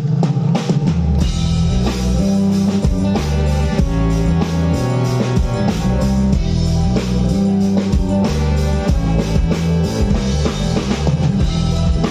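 Live rock band playing: drum kit with kick drum, bass and guitar. The full band comes in suddenly at the start and keeps a steady beat.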